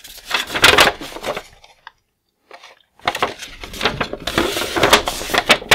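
Paper instruction sheet being unfolded and handled: crisp rustling and crinkling of paper, breaking off for about a second in the middle.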